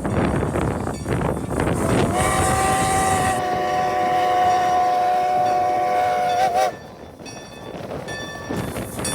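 A locomotive whistle sounds one long blast of about four and a half seconds, a steady chord of several notes that wavers briefly just before it cuts off. It is heard over the rumbling noise of a moving train.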